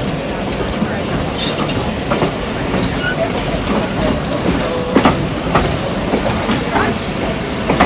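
Railway passenger cars rolling along the track: a steady rumble with irregular knocks and clicks from the wheels, and brief high wheel squeals, the clearest about a second and a half in.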